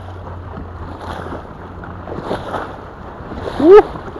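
Strong gusty wind on the microphone and choppy waves splashing against the bank in a storm. Near the end, a short voiced exclamation rises and falls in pitch and stands out as the loudest sound.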